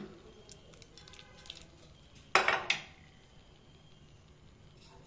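Fried spices and dried chillies tipped from a small steel tempering pan into a steel mixer jar: a few faint ticks, then one sharp metallic clink about two and a half seconds in.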